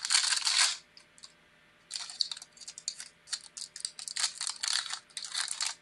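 Foil wrapper of a Panini Chronicles football card pack crinkling and tearing open. It comes in crackly bursts: one at the start, then a run of quick crackles from about two seconds in.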